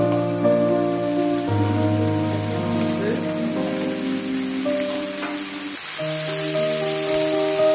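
Background music of slow, held chords that change every second or two, over a steady crackling sizzle of food frying in a pan.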